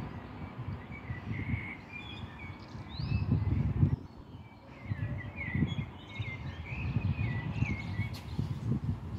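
Small songbirds chirping in short repeated calls, over low gusts of wind buffeting the microphone, strongest about three seconds in.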